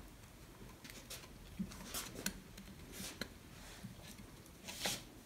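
Light clicks and rustles of plastic and metal parts being handled as the motor and red plastic housing of a small corded electric tool are fitted together by hand, with a sharper click near the end.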